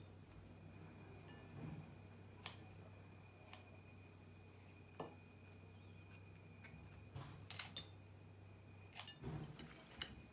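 Kitchen scissors snipping the head, legs and tail off raw whole king prawns, with shell bits and prawns set down on a china plate. It comes as a faint scattering of single clicks and snips, a sharper pair about three quarters of the way in, over a steady low hum.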